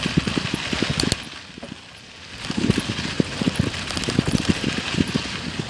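Riding noise from a moving bicycle: wind buffeting the microphone in irregular low thumps over a steady hiss, easing off for about a second partway through.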